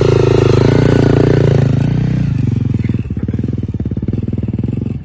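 Dirt bike engine revving with the throttle opening and closing, then dropping back about two and a half seconds in to a lower, steady, pulsing run.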